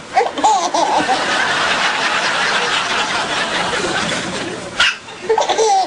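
Soft breathy laughter, with brief high-pitched voice sounds near the start and again near the end, and one short sharp sound a little before the end.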